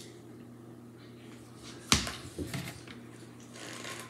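A single sharp click about two seconds in, followed by a few softer handling sounds, as a stainless steel drink bottle is handled and tipped up to drink.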